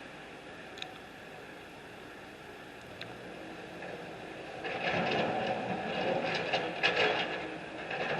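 Heavy construction machinery working: a low, steady background rumble, then from about five seconds in a louder, irregular clattering and scraping of metal.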